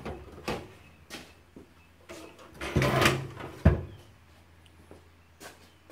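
Screwdriver working screws into the plastic top cover of an oil-filled heater: scattered clicks and knocks of the tool and the plastic casing being handled, a short rattling burst about three seconds in, then one sharp knock, the loudest sound.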